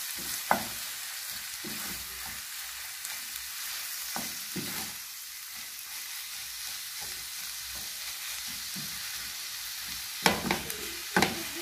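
Minced meat with onions sizzling as it fries in a nonstick pan while a wooden spoon stirs and scrapes through it. A few sharper knocks of the spoon on the pan stand out, about half a second in and twice near the end.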